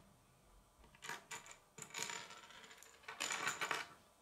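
Three short bursts of rattling clicks, as of small hard pieces clattering together, the last the loudest.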